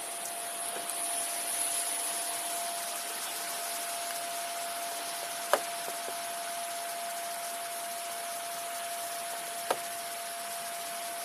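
Steady hiss on a police body-worn camera's microphone in the rain, with a faint constant whine and two sharp clicks about four seconds apart.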